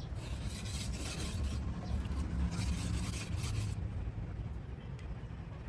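Rasping strokes of a hand file on steel, a few back-and-forth passes that stop about two-thirds of the way through, over a low background rumble.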